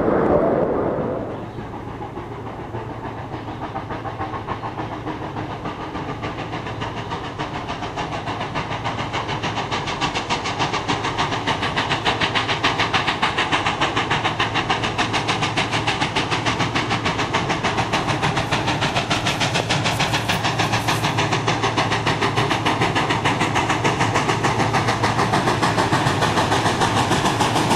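Baldwin 2-8-0 steam locomotive 734 working toward the listener, its pulsing exhaust growing louder over the first ten seconds or so and then holding steady. A different, louder sound fades out in the first second or so.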